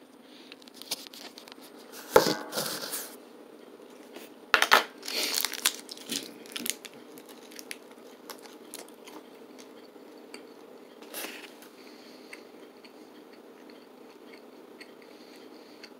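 Plastic snack-stick wrapper crinkling and a beef and pork smoked snack stick being bitten and torn off, in a few short sharp bursts, then faint chewing. A faint steady hum runs underneath.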